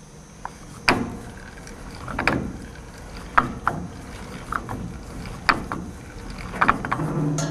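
Hand-cranked tennis-ball throwing machine: its crank wheel, sprocket and chain clacking and knocking irregularly, roughly once a second, as it carries tennis balls up in wire cups.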